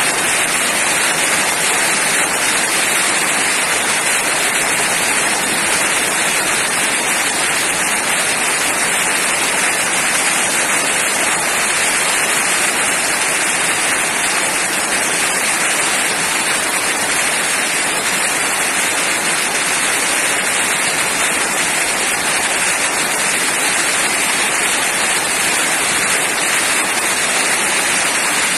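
Heavy rain falling in a steady, unbroken hiss.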